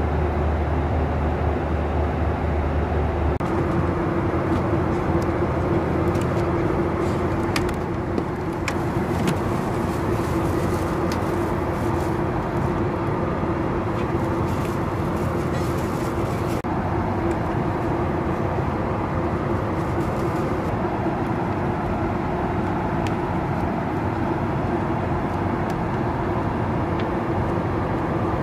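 Steady drone of a Boeing 737-800's cabin at cruise: engine and airflow noise with a constant low tone, heard from a window seat. A deeper hum drops out about three seconds in, and a few faint clicks come through in the middle.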